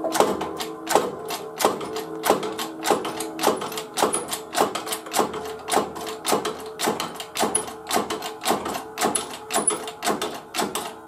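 Hand-pumped hydraulic press clicking in an even rhythm, about one and a half strokes a second, as it pushes a seized two-stroke piston and crankshaft out of the cylinder.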